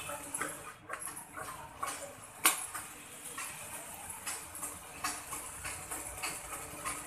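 Light rustling and small clicks of cut cloth pieces being handled and laid at a sewing machine, with one sharp click about two and a half seconds in.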